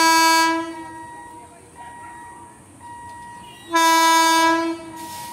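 An Indian Railways electric locomotive sounds its horn as it approaches: two blasts of about a second each, one at the start and the second almost four seconds later.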